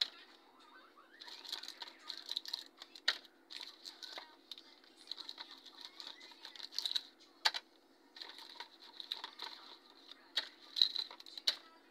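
Wrapped candies dropped one by one into a plastic tray: crinkling wrappers and sharp light clicks as the sweets land on the plastic and on each other.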